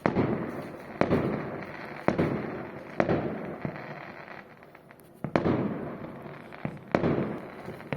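Fireworks bursting in the sky, a series of sharp booms about a second apart with a pause near the middle, each trailing off in a rumbling echo.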